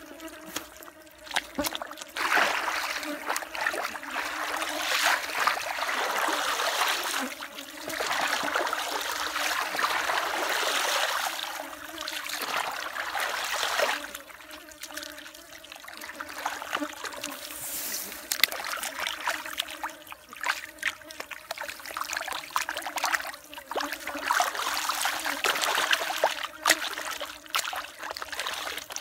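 Wet mud and shallow water sloshing and trickling as a plastic slotted basket is scooped through the muck of a drained rice field and water drains out through its slots. It comes in several spells of splashing with a quieter stretch in the middle.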